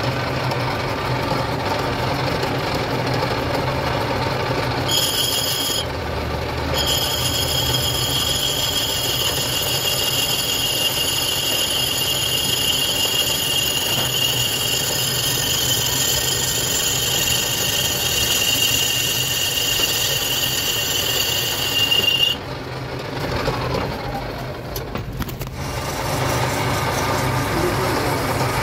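Lathe running steadily while a cutting tool skims the face of a car brake disc. From about five seconds in, the cut gives a loud, high, steady squeal, broken once briefly, that stops abruptly about three-quarters of the way through, leaving the lathe's hum.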